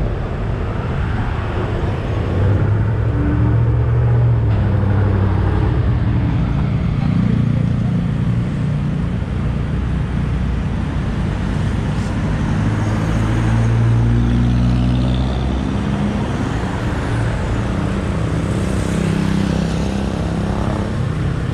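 Vehicle engine running while driving at low street speed, its pitch rising and falling several times as it speeds up and eases off, over steady road and wind noise.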